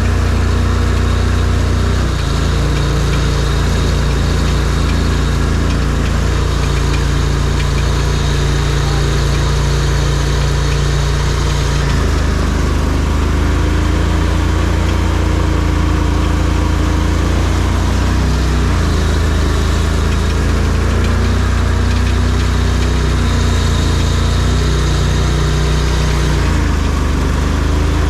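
ARGO amphibious ATV's engine running under way, its note shifting up and down several times as the throttle and load change.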